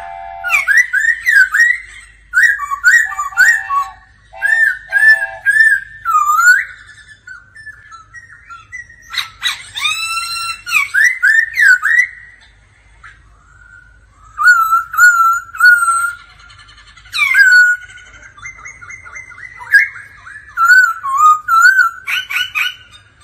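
Black-throated laughingthrush (khướu bạc má) singing: loud, varied whistled phrases of quick rising and falling notes, in bursts separated by short pauses, with a richer, harsher run of notes about halfway through.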